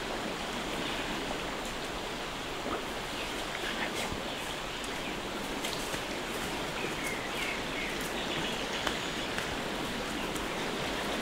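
Steady outdoor rushing ambience, like running water, with scattered light ticks and rustles and a few short, high, falling chirps in the middle.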